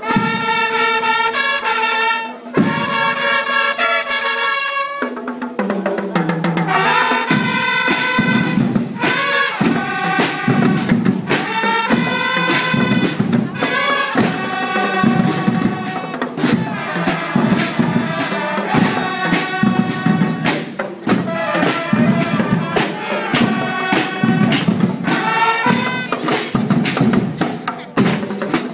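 School marching band of trumpets, snare drums and bass drums playing. Held brass notes open the passage, then about seven seconds in the drums come in with a steady beat under the trumpets.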